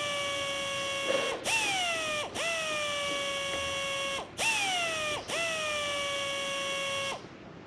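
A small electric motor runs in repeated bursts of about one to two seconds, five or so in a row. Each burst drops quickly in pitch as it starts, holds a steady whine with a hiss, then cuts off abruptly.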